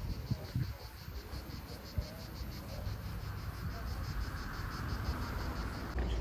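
Cicadas singing: a high, pulsing buzz that repeats evenly about five times a second.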